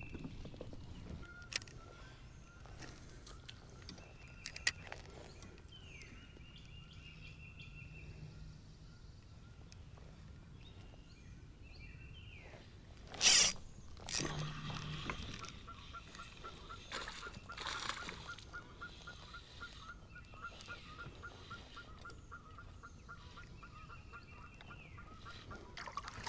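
A spinning rod cast with one sharp swish about halfway through, followed by the spinning reel being cranked with a steady fine ticking as the lure is retrieved. A bird gives short trilled calls every few seconds throughout.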